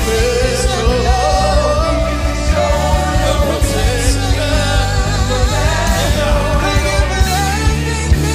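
Live gospel band music with singing over a full band and a steady heavy bass.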